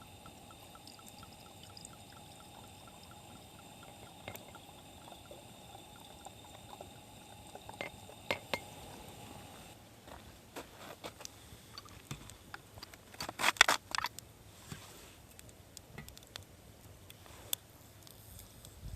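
Liquid being poured: a steady hiss for about ten seconds, then scattered clicks and knocks, loudest in a short cluster about thirteen seconds in.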